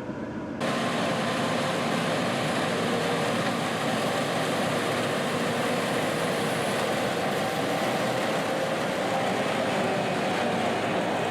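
Farm machinery running steadily: a dense, even mechanical noise with a faint steady hum, which comes in abruptly about half a second in.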